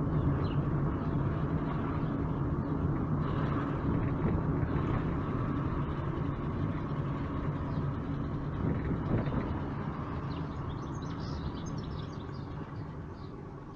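Car engine and tyre noise on the road, a steady low rumble that fades over the last few seconds as the car slows toward a junction.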